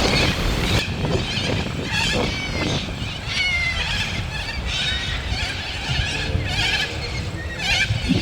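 A flock of wild parrots squawking and chattering: many short, harsh calls in quick succession, over a low wind rumble on the microphone.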